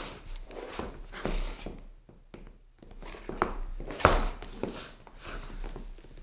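Shoe soles scuffing and scraping across a wooden floor in irregular steps, with one sharper, louder footfall about four seconds in.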